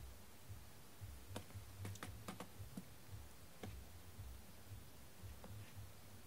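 Small light clicks of a wooden orange stick tapping against a clear plastic case of nail sticker circles as the dots are picked out: a quick cluster between about one and three seconds in, then a few scattered taps. A faint low hum runs underneath.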